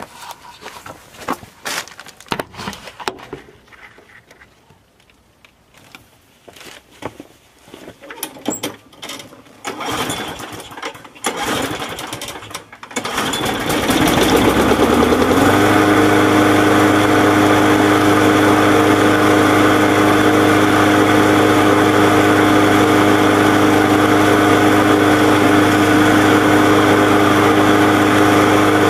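A John Deere 14SZ walk-behind mower's small engine starts after some seconds of knocks and rattles, catches about halfway through and settles within a couple of seconds into steady running at an even pitch, with its carburetor freshly cleaned and its oil fresh.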